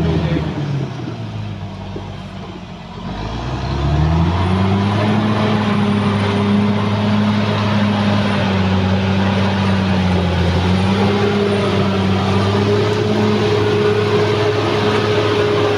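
Caterpillar D6R XL bulldozer's diesel engine. It drops to lower revs about a second in, revs back up around three to four seconds in, then runs steadily at high revs under work.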